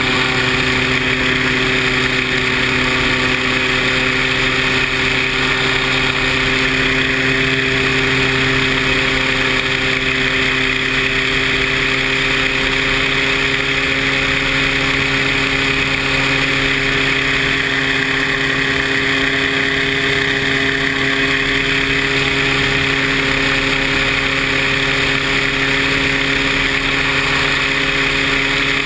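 Paramotor engine and propeller running steadily at an almost constant pitch, as at steady throttle in flight.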